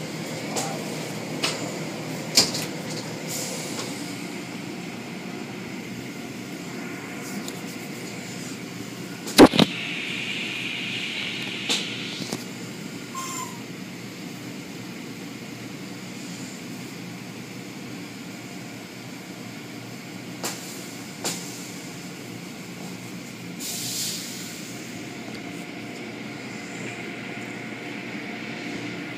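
Tunnel car wash machinery running: a steady mechanical noise of conveyor, spinning brushes and water spray, broken by a few sharp knocks and clacks, the loudest about nine seconds in. A hiss of spray lasting about two seconds follows it, and another swells near the end.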